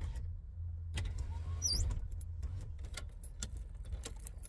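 Steady low hum of a car's engine idling, heard inside the cabin, with scattered small clicks of food and utensils being handled and a short high squeak a little under two seconds in.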